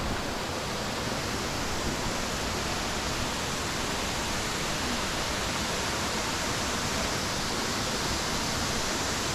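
Waterfall rushing in a steady, even roar of falling water.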